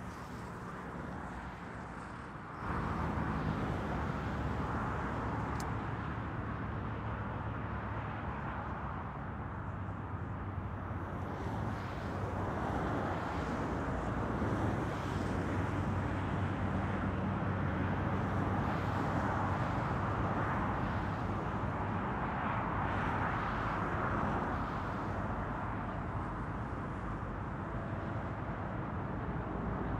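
A Boeing 747-400's four jet engines at takeoff power on the runway, heard from a distance as a steady rumble with a low hum. The sound steps up suddenly about three seconds in and stays loud.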